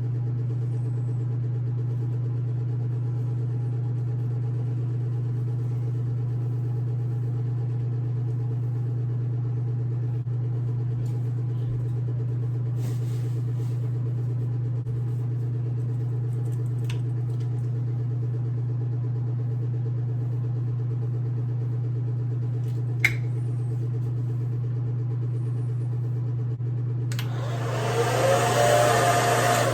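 Hair dryer motor running with a steady low hum. About 27 s in, a loud rush of air starts.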